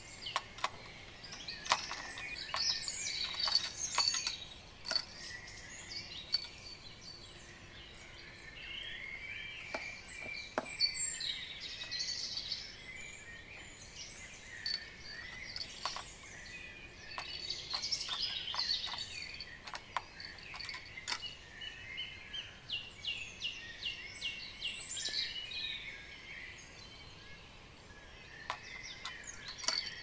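Songbirds chirping and singing in woodland, with a quick trill of repeated notes late on, over a steady outdoor background and scattered sharp clicks.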